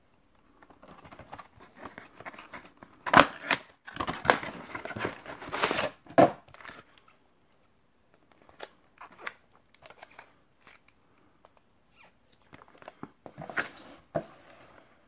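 Cardboard box of a ready meal being opened and its film-sealed plastic tray slid out and handled. There is rustling, two sharp snaps about three seconds in, then a few seconds of loud scraping and crinkling. Near the end come lighter taps, knocks and rustles as the box and tray are set down on a wooden table.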